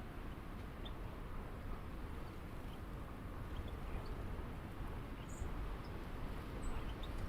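Backyard ambience: a steady low rumble with scattered faint, short bird chirps.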